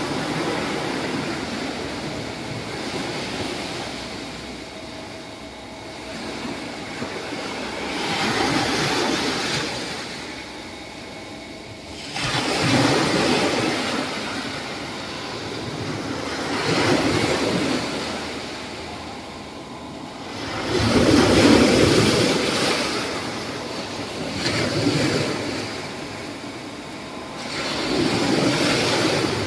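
Small sea waves breaking and washing up a sandy beach, the surf swelling and fading every few seconds, the loudest surge a little past the middle.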